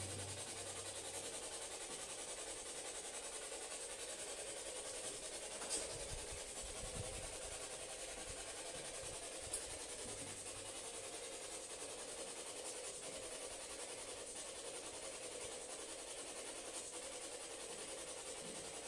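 Steady low hiss with a faint hum: quiet room tone and microphone noise. Two small clicks come about six and nine and a half seconds in, with a brief low rumble around six to seven seconds.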